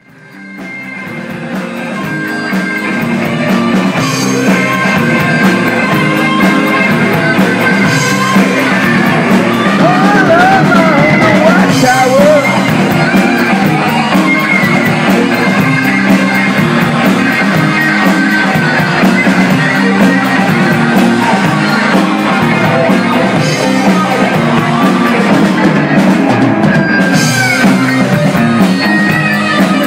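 Live rock band playing on electric guitar and drum kit, fading in over the first few seconds, then loud and steady.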